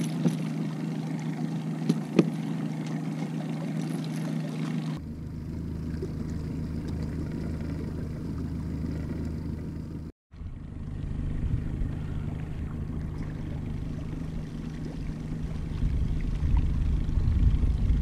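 Boat's outboard motor running steadily at trolling speed, with two sharp knocks in the first few seconds.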